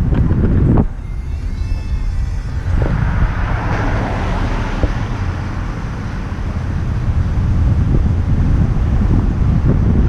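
Wind buffeting an action camera's microphone on a moving vehicle, a heavy uneven rumble with road and traffic noise under it. About three seconds in, a hissing swell builds and fades again by six seconds, as a vehicle passes close alongside.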